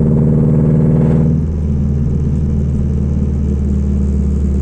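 Ford Fiesta engine running through unequal-length headers and a 2.5-inch open pipe, pulling steadily. About a second and a half in, the pitch drops and the sound eases off.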